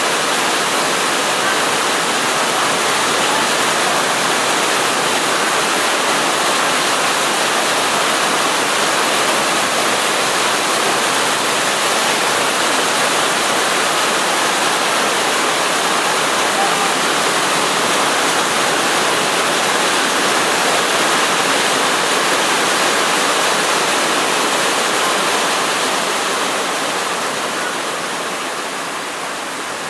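Heavy rain pouring down as a steady, dense hiss, getting a little quieter near the end.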